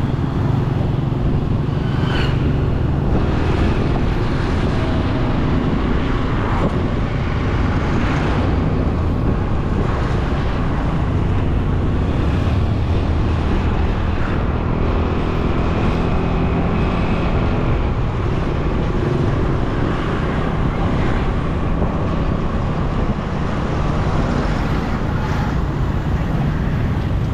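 KTM motorcycle engine running under way through town traffic, its note rising and falling with the throttle, under a steady rush of wind on the bike-mounted camera.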